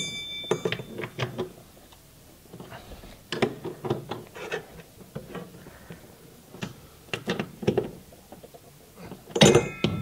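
Socket wrench clicking and clinking in short runs of sharp clicks as the new transmission's mounting bolts on a Samsung top-load washer are tightened in a cross pattern, with a louder ringing metal clink near the end.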